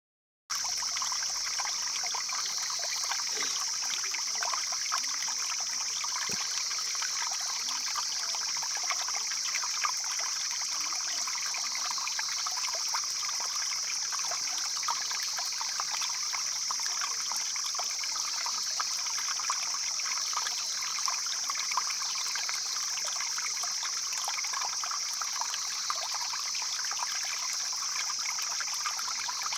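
Stream flowing and babbling steadily, with a constant high-pitched hiss sitting over the water sound.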